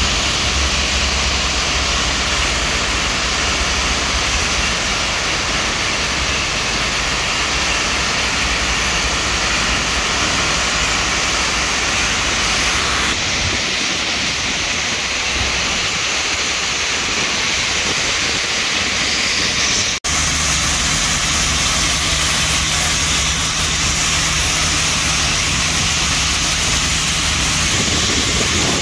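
Steady, loud hissing rush with a low rumble underneath, from dry-dock work on a ship's hull: high-pressure water spraying the hull, with machinery running. The sound shifts abruptly twice, with a brief dropout about two-thirds of the way through.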